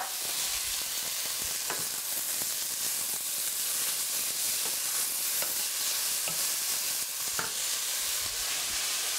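Stir-fry vegetables sizzling in oil in a stainless steel pan, with a steady hiss. They are stirred with a wooden spoon, which gives a few short knocks against the pan.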